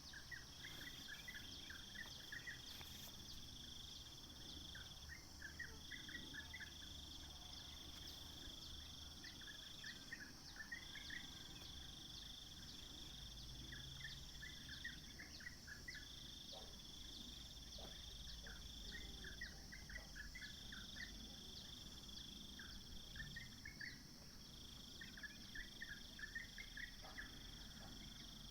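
A songbird singing short phrases of quick, clustered notes, repeated about every four seconds, over a steady high-pitched chorus of insects with a trill that stops and starts.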